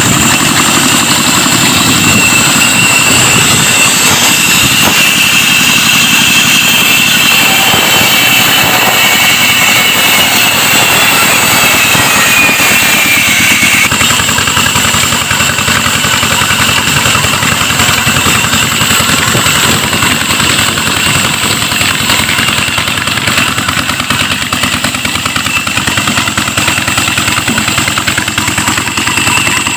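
Wood-cutting saw machine driven by a Peter-type diesel engine, running steadily with a high whine over the engine's beat. About halfway through, the whine slides down in pitch and the sound becomes a little quieter.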